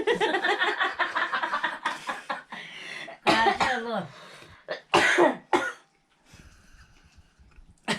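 A person coughing in a quick run of bursts, followed by a few short vocal sounds.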